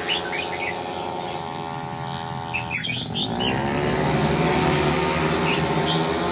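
Racing automatic scooter engines running hard, with the engine note changing about three seconds in as one bike passes, while birds chirp.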